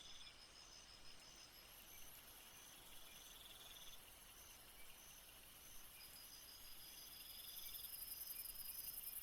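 Faint chorus of insects: a steady run of quick high chirps, a buzzing trill that comes and goes every couple of seconds, and a very high pulsing trill that grows louder near the end.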